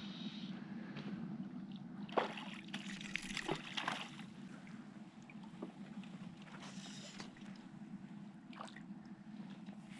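Water sloshing and splashing around a small pontoon boat over a steady low hum, with the busiest splashing about two to four seconds in and another brief splash near seven seconds. The hum fits the boat's small electric motor running.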